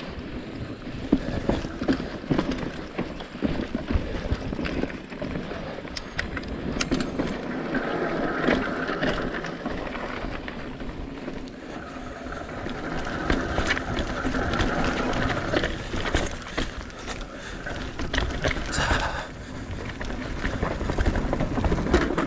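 Mountain bike rolling down a dirt trail, with tyres running over the ground and the chain and frame clattering in quick, uneven knocks over bumps.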